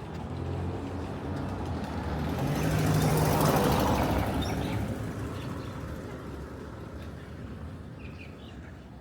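A motor vehicle passes close by: its engine and rushing noise build up to a peak about three or four seconds in, then fade away.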